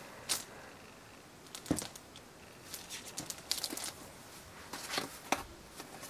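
Scattered soft rustles and light taps as a skein of handspun yarn is handled and set down among other skeins on a table.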